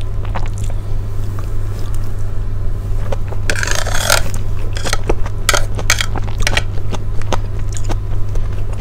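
Metal spoon scraping and clinking against a plate of rice porridge: scattered sharp clicks, with a longer scrape about three and a half seconds in, over a steady low hum.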